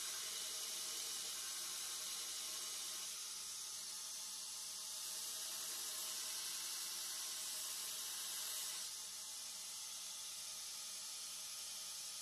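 Belt grinder running while a high-carbon steel knife blank is ground against the belt over the contact wheel: a steady hiss of steel on abrasive, easing off slightly about nine seconds in.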